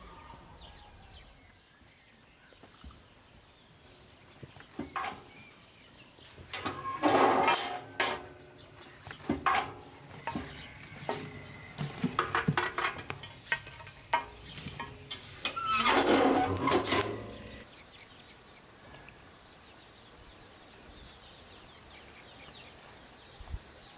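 Small sheet-metal wood stove and firewood knocking and clattering as wood is fed onto the embers: a run of sharp knocks with two louder clattering spells, starting about five seconds in and stopping a few seconds before the end. Quiet outdoor background around it.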